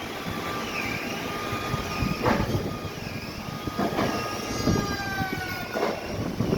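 Heavy sawmill machinery running, with a whine that wavers up and down in pitch and four knocks or thuds along the way.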